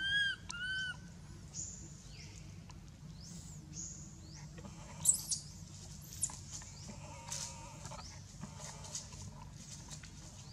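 Infant macaque giving two short arched cries right at the start, with birds chirping high around it. A couple of shrill high chirps about halfway through are the loudest sounds.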